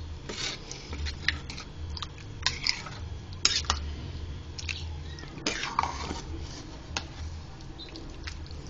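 A metal spoon stirring thick beans with sliced sausage in a stainless steel pot: wet squelching and irregular scrapes and clinks of the spoon against the pot, the sharpest about three and a half and five and a half seconds in, over a low steady hum.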